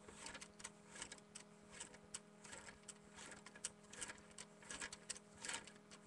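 Faint, irregular light clicks and taps of small plastic Littlest Pet Shop toy figures being moved about by hand, two or three a second, over a faint steady electrical hum.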